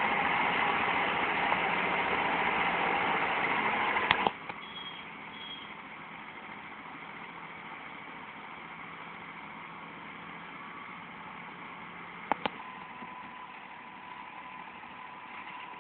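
Motor grader's diesel engine running steadily close by, loud, then about four seconds in it drops abruptly to a quieter, more distant engine sound.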